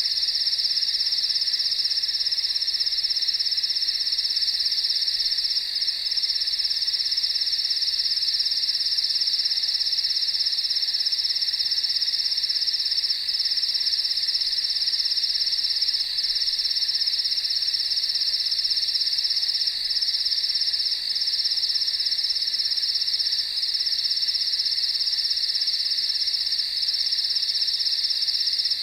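A dense, steady chorus of crickets chirping, from a country night ambience recording.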